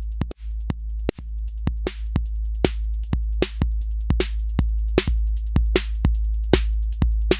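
Electronic drum loop from a Eurorack modular synthesiser, heavily compressed by a patched-together compressor, with punchy hits a little over two a second and lighter hits between them over a steady deep bass. It gets louder about a second in as makeup gain is brought up.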